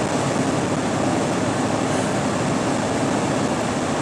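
Steady road and engine noise heard inside a semi-truck's cab, the truck running at moderate highway speed.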